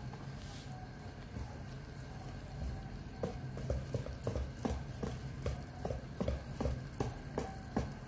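Wire whisk beating batter in a stainless steel bowl. The whisk clinks against the side in short, irregular taps, which become louder and more frequent from about three seconds in, roughly three a second.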